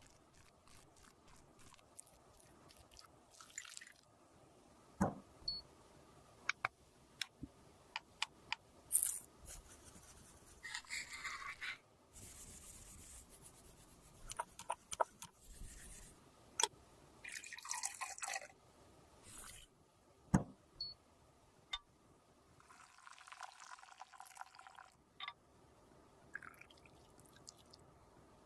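Close-up sounds of makeup being repaired and mixed by hand: scattered sharp clicks and taps, with several short stretches of wet, smearing noise as the paste is worked.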